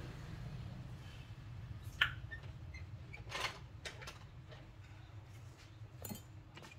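Small hard tools clicking and tapping on a work surface a few times during hand repair work, with a sharp click about two seconds in and a brief scrape shortly after. A steady low hum runs underneath.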